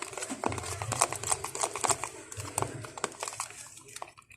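A utensil stirring a thick, sticky homemade slime mixture in a bowl, giving a run of irregular clicks and taps.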